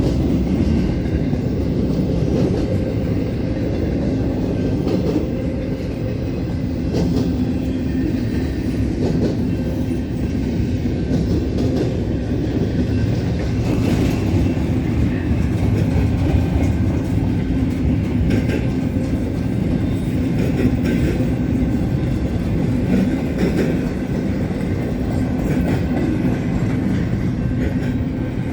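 Freight cars of a long intermodal train rolling past: a continuous rumble of steel wheels on rail, with scattered clicks as the wheels cross rail joints.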